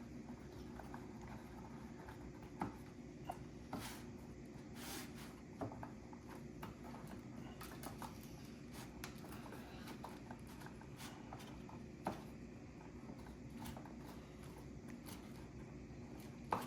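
Faint, scattered clicks and taps of small plastic kit parts, bolts and nuts being handled and fitted, with a few sharper clicks now and then.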